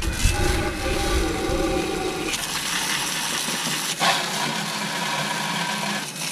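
Water from a garden hose spray gun hissing and splattering against the underside of a boat trailer and hull, steady until it stops about six seconds in.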